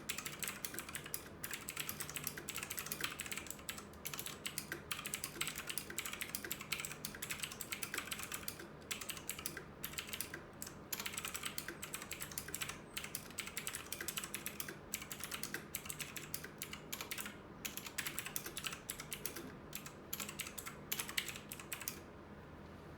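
Fast, continuous typing on a Lingyi K52 mechanical keyboard with clicky blue Outemu switches: a dense clatter of keystrokes that stops about a second before the end.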